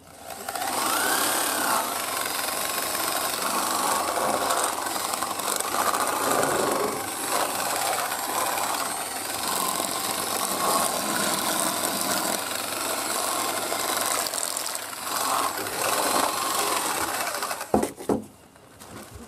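Homemade chicken plucker, driven by a corded electric drill, running steadily as a scalded chicken is held in it to strip the feathers. It stops abruptly near the end.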